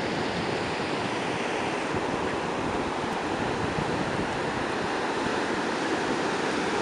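Pacific Ocean surf breaking and washing up the beach: a steady, unbroken rush of white-water noise.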